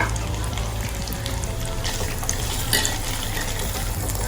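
Boiled potatoes sizzling in garlic butter in a pan: a steady hiss with scattered small pops over a low steady hum.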